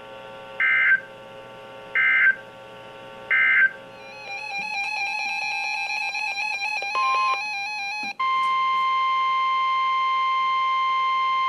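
Emergency Alert System data tones on NOAA Weather Radio: three short end-of-message bursts about 1.3 seconds apart. They are followed by about four seconds of warbling digital header tones for the next alert. About eight seconds in, the steady 1050 Hz weather-radio warning alarm tone begins and holds at full level, announcing a new warning.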